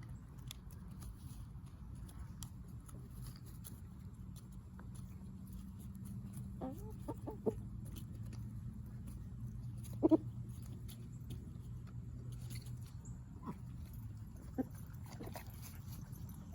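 Backyard chickens clucking, a few short calls at a time, the loudest about ten seconds in, over a steady low background hum.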